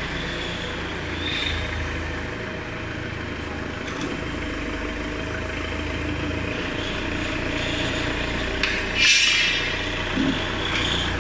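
A CNC hydraulic guillotine shear running, its hydraulic pump giving a steady hum. About nine seconds in comes a short, loud burst of noise, with lighter knocks just before it.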